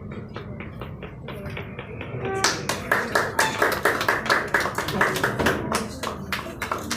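A small group of people applauding. The clapping is scattered at first, then grows denser and louder about two and a half seconds in.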